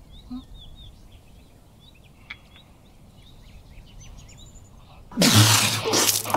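Faint bird chirps in the background, then about five seconds in a sudden loud splash lasting about a second: a cup of tea thrown into someone's face.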